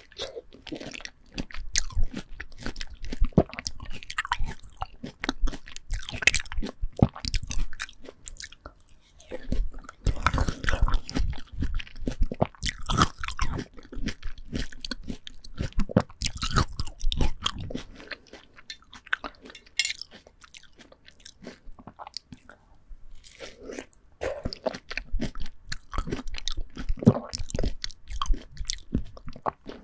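Close-miked biting and chewing of ripe, juicy melon flesh: wet, crackling crunches and clicks in irregular runs, easing off for a few seconds about two-thirds through.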